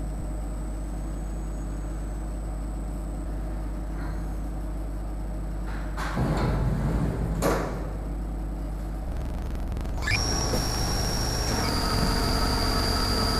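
Syil X5 Pro CNC milling machine: a steady hum, then the enclosure's sliding door rolled shut about six seconds in, ending in a knock. About ten seconds in the spindle spins up with a quickly rising high whine that settles to a steady pitch and steps down once soon after.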